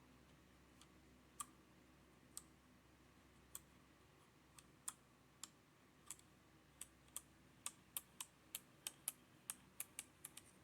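Sharp plastic clicks from a HyperX Alloy Origins Core mechanical keyboard being worked on. They come one at a time and spaced out at first, then quicker, about three a second, over the last few seconds.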